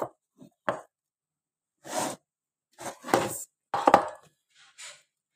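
Spatula scraping nugget mixture out of a plastic food processor bowl and knocking against the bowl and a plate: a series of short scrapes and sharp knocks with gaps between them.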